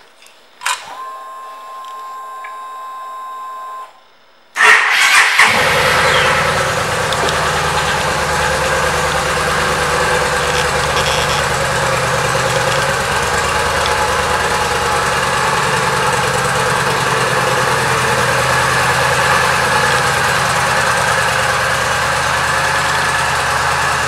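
Yamaha V Star 950's ignition switched on with a click, followed by a steady whine of the fuel pump priming for about three seconds. About four and a half seconds in, its air-cooled V-twin is started, catches at once with a brief flare, and settles into a steady idle.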